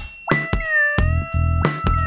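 Background music: plucked guitar over a bass line and a steady beat, with a held guitar note that bends down in pitch and back up.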